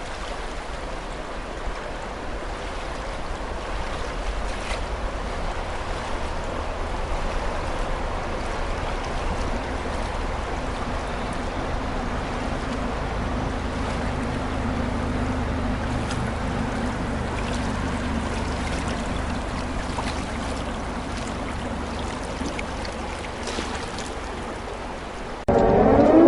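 Rushing water of a river in spring flood, running high and fast, with a low wind rumble on the microphone. In the last second a loud siren starts, rising in pitch.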